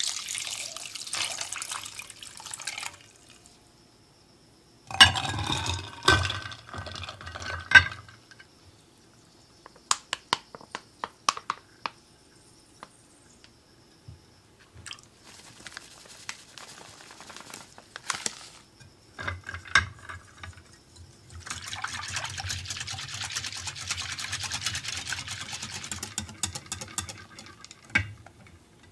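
Water poured over ice cubes in a glass bowl, then glass and ice clinking with ringing knocks. Heavy cream is poured in, and a hand balloon whisk beats it steadily against the glass bowl for the last nine seconds or so, whipping the cream over an ice bath.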